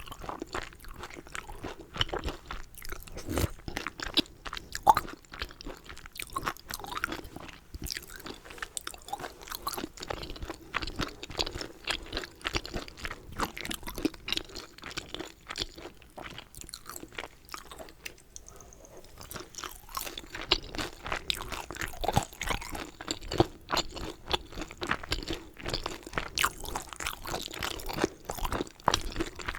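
A person chewing dumplings close to the microphone: dense, irregular mouth clicks and squishy biting, easing off for a few seconds a little past halfway.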